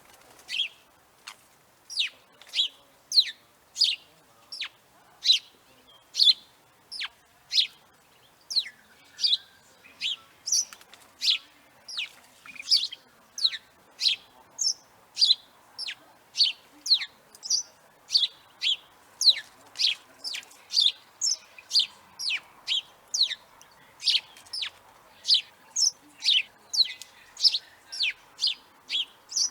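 House sparrow chirping: a long series of short, sharp cheeps, each a quick falling note, about one and a half per second, at an uneven but steady pace.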